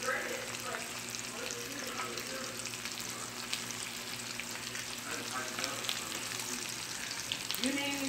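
Sausages with diced onions and green peppers sizzling steadily in a frying pan, with a constant fine crackle of popping fat.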